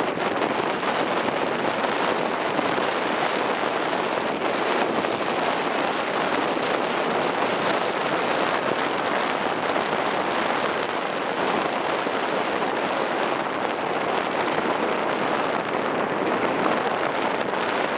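Strong wind buffeting the microphone aboard a ferry under way, a steady rushing noise without a break.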